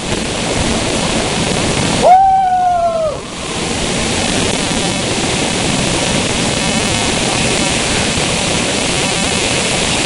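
Steady rushing noise of rain. About two seconds in comes a short yell, held for about a second and falling slightly, which is the loudest sound.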